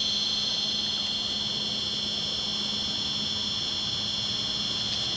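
Homemade 1:12 RC excavator's electric drive whining steadily and high-pitched, with a lower hum beneath, while the boom raises the bucket.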